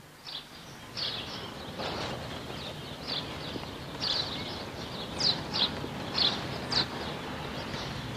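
Small birds chirping, a run of short high calls that come more often from about four seconds in, over a steady outdoor background hiss.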